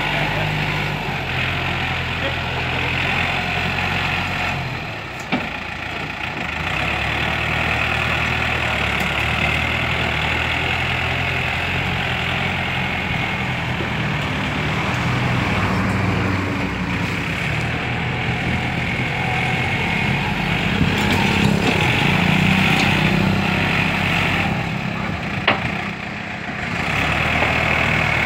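Yanmar EF514 tractor's diesel engine running steadily as it pulls a disc harrow through dirt and pushes soil with its front blade. Its note dips briefly about five seconds in and again near the end, each time with a sharp knock.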